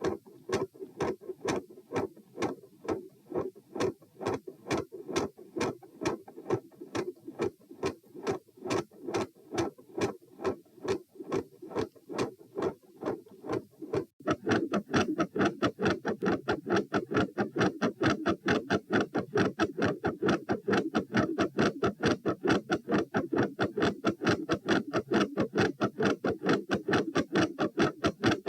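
Human heart sounds, a regular lub-dub heartbeat, in two recordings of the same subject at a similar heart rate. In the first half the first heart sound (S1) is soft; after a sudden change about halfway, S1 is much louder.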